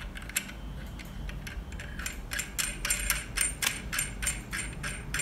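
Light metallic clicking and ticking as a hex nut is turned by hand onto a bottle filler's chrome threaded shank. The clicks are sparse at first and come about four or five a second from about two seconds in.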